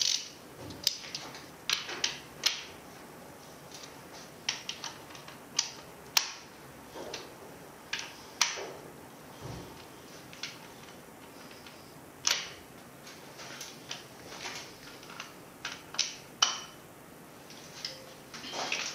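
Irregular metallic clicks and clinks, with a few short scrapes, from small steel parts being handled and knocked together while the valve gear of a Bedford RL cylinder head is taken apart.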